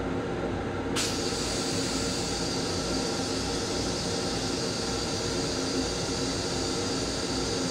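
A steady spray-like hiss of water starts suddenly about a second in: a stainless-steel train toilet flushing and rinsing its bowl, over the railcar's steady running rumble.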